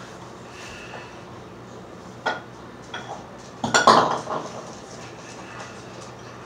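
A couple of sharp knocks, then a louder clatter of hard objects knocking together about four seconds in.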